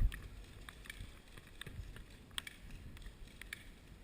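Irregular light clicks and knocks, one sharper knock at the very start, over a low rumble: a player's gear and movement heard close to the microphone.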